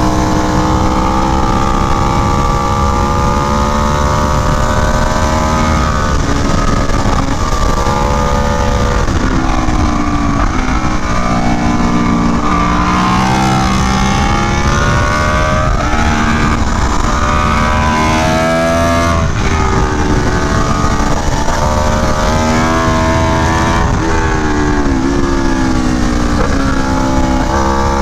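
Aprilia Tuono V4 1100 Factory's V4 engine at track speed through an SC Project CR-T exhaust. The revs climb through the first few seconds with sharp drops at upshifts about six and eight seconds in, then several quick up-and-down rev blips as it downshifts for corners, over a steady wind rush.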